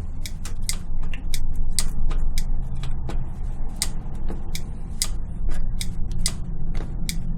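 Bicycle pedal and crank clicking sharply, about three irregular clicks a second, as weight is pressed onto the pedal with the brake held. It is the clicking that comes through when pedalling, which the mechanic traces to the pedal.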